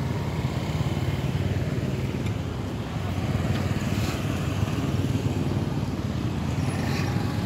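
A motor vehicle engine running steadily nearby, a continuous low rumble.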